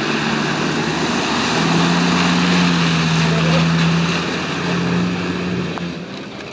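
Off-road racing 4x4's engine pulling hard at steady high revs, over a rushing noise of mud and water spray thrown by the spinning tyres. The engine eases off near the end.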